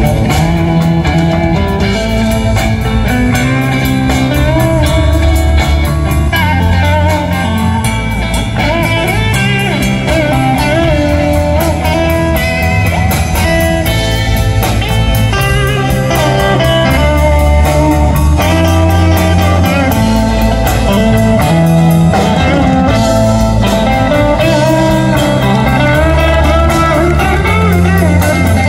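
Live band playing amplified blues-rock: an electric guitar plays a lead line with bent notes over electric bass, a second electric guitar and a drum kit.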